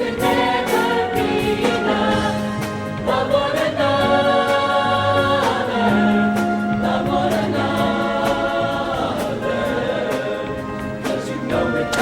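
High-school show choir singing in full harmony, holding long chords in a gospel-style passage.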